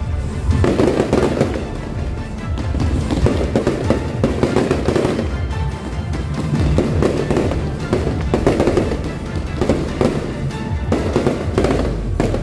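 Aerial fireworks bursting and crackling in rapid, continuous succession, with music playing underneath.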